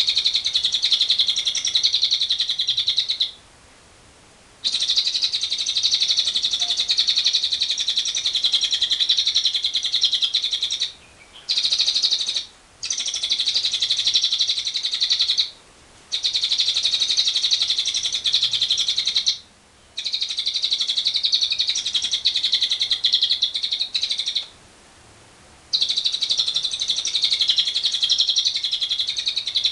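Lovebird 'ngekek panjang': long bouts of rapid, high-pitched chattering trill, each lasting several seconds, broken by short pauses of about a second. This is the long chatter of a lovebird in full song, used as a lure to set other lovebirds calling.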